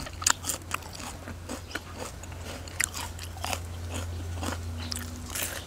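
Close-up crunching and chewing of raw small Thai bitter gourd (mara khee nok): a quick run of crisp, irregular crunches from biting and chewing. A steady low hum runs underneath.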